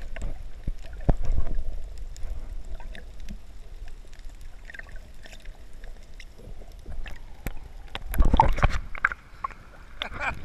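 Underwater sound picked up by a GoPro Hero3 in its waterproof housing: muffled water sloshing and gurgling with scattered small clicks. About eight seconds in, a louder burst of splashing comes as the camera breaks the surface.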